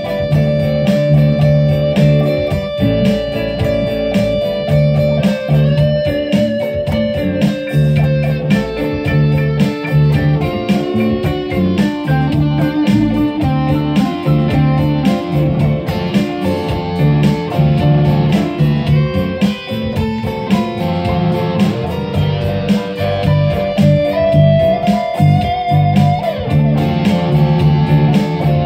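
Electric guitar playing a blues instrumental passage: a steady, repeating low bass figure under lead notes, with a string bend near the end.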